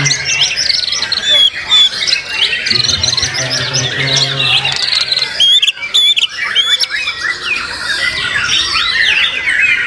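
White-rumped shamas (murai batu), several singing at once: loud, rapid, varied phrases of whistles, trills and harsh notes, overlapping without a break.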